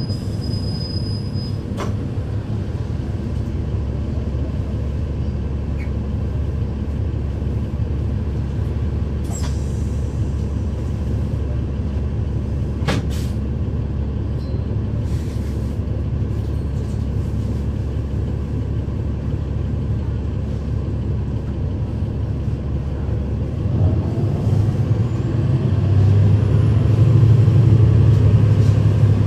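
Interior of a 2012 NABI 40-SFW transit bus under way: steady rumble of its Cummins ISL9 diesel engine and the road, with a few sharp rattles or clicks. Near the end the engine grows louder, with a strong steady hum.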